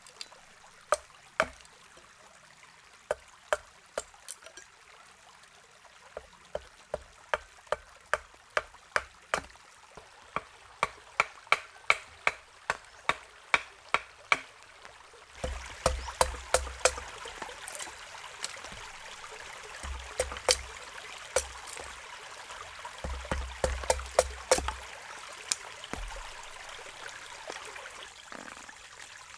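Repeated sharp chopping knocks on wood, at times two or three a second, with running stream water behind that grows louder about halfway through.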